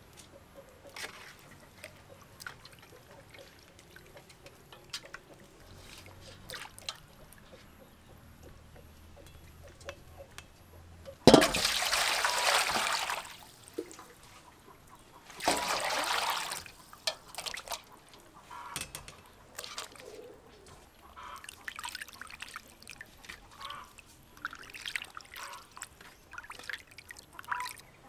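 Water poured into a metal bowl in two spells near the middle, the first about two seconds long and the second shorter, with small clicks and splashes of hands handling raw chicken in a bowl of water before and after.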